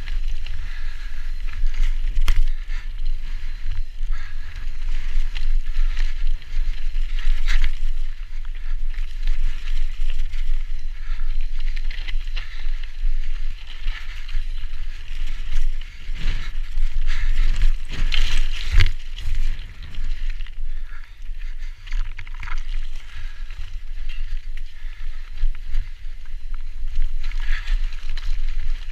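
Mountain bike descending a rocky trail at speed: tyres rolling and crunching over rock slab and loose gravel, with the bike rattling and knocking over bumps, clearest around 2 seconds in, 7 seconds in and at 18 to 19 seconds. Wind rumbles on the microphone throughout.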